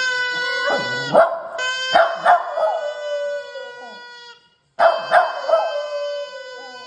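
A puppy howling along to a long, steady held note, with wavering howls and a few sharp yips and barks. There are two bouts; the held note fades at the end of each.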